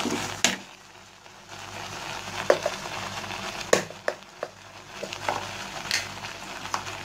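Thickened milk reducing toward khoa in a nonstick pan, bubbling and sizzling as a spatula scrapes through it, with scattered sharp clicks and taps.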